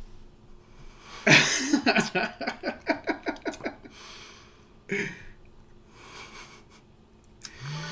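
A man's breathy laughter: a quick run of short, even huffs starting about a second in, and one more huff about five seconds in.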